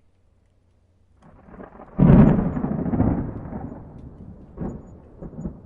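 A low, thunder-like rumble that swells from about a second in to a loud boom, then slowly dies away, with a few short crackles near the end.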